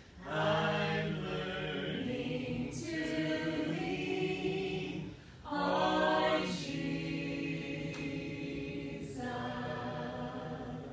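A small mixed group of men's and women's voices singing a hymn a cappella, in long held phrases with a short break for breath about five seconds in.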